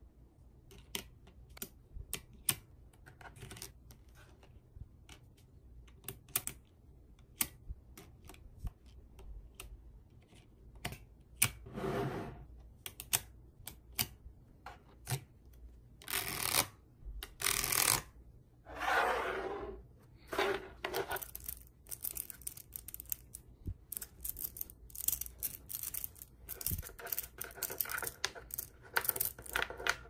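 Mini neodymium magnetic balls clicking and clattering as they are handled and snapped together, with a few longer scraping rasps as a plastic card is pushed across the block of balls.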